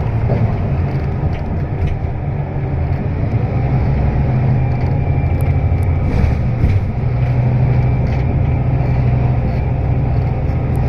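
Scania K320UB city bus on the move, heard from inside the passenger cabin: a steady low hum from the rear-mounted five-cylinder diesel engine, with road noise. The engine note briefly dips about six to seven seconds in, then picks up again.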